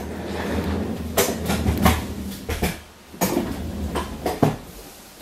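Office chair casters rolling across the floor with a low rumble, broken by several knocks and clatters from a tripod being dragged alongside.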